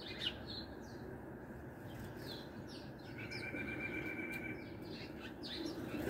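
House sparrows chirping: many short, high chirps scattered throughout, with a held note in the middle. There is a sharp click just after the start, all over a steady low background noise.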